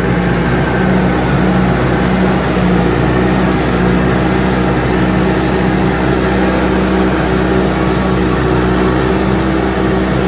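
Log skidder's diesel engine running steadily under load while dragging a hitch of logs.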